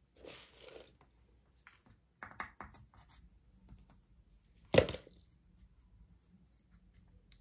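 Rustling and scattered light clicks of fertilizer being handled and sprinkled onto potting soil, with one sharp knock about five seconds in, the loudest sound.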